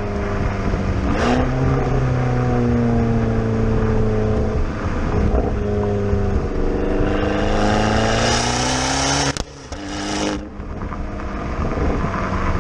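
Abarth 500 Esseesse's 1.4-litre turbocharged four-cylinder engine through a Monza exhaust, pulling under load with its pitch climbing. About nine seconds in the sound cuts off sharply, then builds again near the end.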